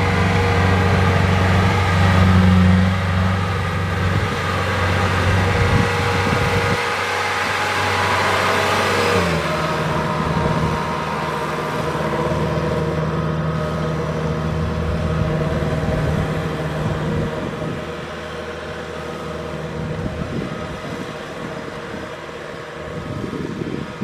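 Kubota DC-70 Plus combine harvester's diesel engine running steadily. The sound changes abruptly about nine seconds in as the harvester drives on, and it grows quieter toward the end.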